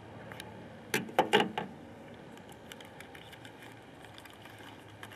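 Light clicks and taps of small metal items being handled: a small Winchester pocket knife and a modified snuff tin. A short cluster of knocks about a second in, then faint scattered ticks.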